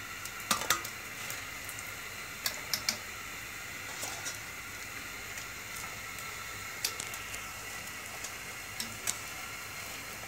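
Zalabia dough balls deep-frying in a pot of hot oil: a steady sizzle with scattered sharp crackles and clicks.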